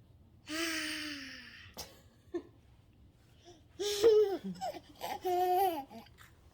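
A toddler babbling and laughing: a long, breathy, falling squeal about half a second in, then two shorter pitched calls a few seconds later.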